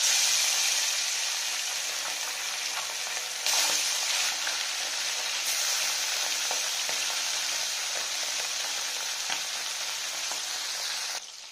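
Whole small carp sizzling in hot mustard oil in an aluminium kadai: a loud, steady frying hiss that gets louder about three and a half seconds in and drops away suddenly near the end.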